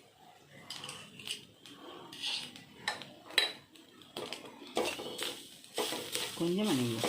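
A metal spoon scraping and clinking against a pan as grated coconut is stirred while it roasts in ghee. The scrapes and clicks come irregularly and grow busier and louder about five seconds in.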